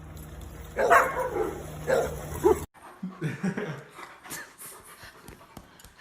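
A dog barking: a loud bark about a second in, then two shorter barks about a second later.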